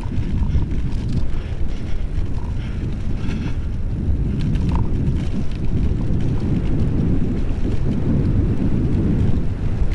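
Wind buffeting an action camera's microphone on a mountain bike rolling fast downhill, with the low rumble of the tyres over a grassy track.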